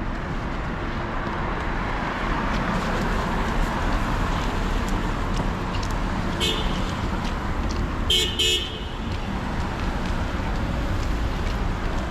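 Steady street traffic noise with a car horn tooting: one short toot about six and a half seconds in, then two quick toots about two seconds later.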